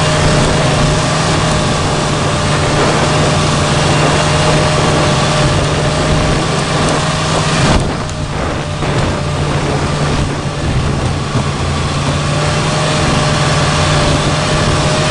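Snowmobile engine running steadily while under way. The sound dips in level about halfway through, then picks up again.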